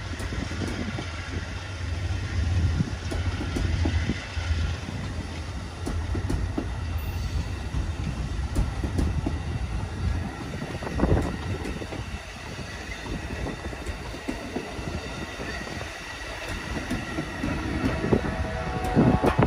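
A train rolling past: the Amtrak delivery train, a pair of GE Genesis diesel locomotives hauling a new Acela trainset. There is a deep rumble that is strongest in the first half and weakens after about ten seconds, with a single knock about eleven seconds in.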